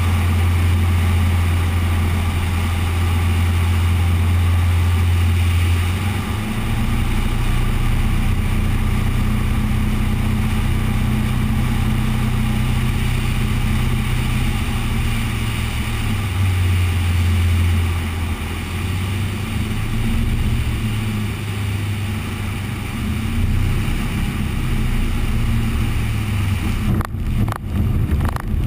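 Idro-Storch ultralight floatplane's engine and propeller droning, with airflow rushing past the wing, the engine note shifting a few times as it descends. Near the end the floats touch the water with a brief rush and splash of spray.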